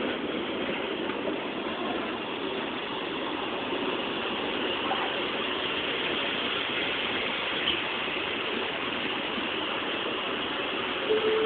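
Passenger train rolling slowly past a platform: a steady rumble of wheels on rails with mechanical clatter from the carriages.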